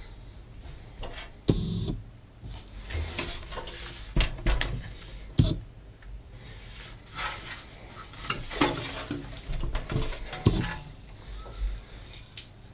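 Handling noise from a steel and plastic Mini-ITX computer case being turned around on a table: scattered knocks and clinks with scraping and rubbing between them.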